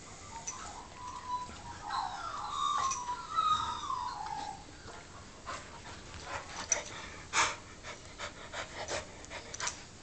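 Mastiff cross dog whining in a run of short whines that rise and fall, about a second to four and a half seconds in, then a scatter of sharp clicks and scuffling as the animals tussle.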